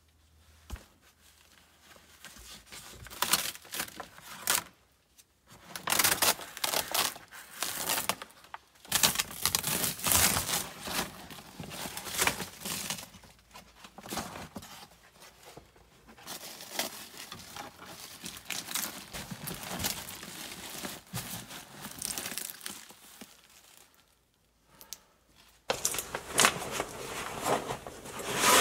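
Crinkling and tearing noises from material being handled, in irregular bursts, with short quiet breaks about five seconds in and again near the end.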